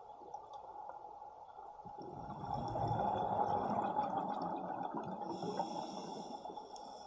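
Scuba diver exhaling through a regulator underwater: a burst of exhaust bubbles swells about two seconds in and fades over a few seconds.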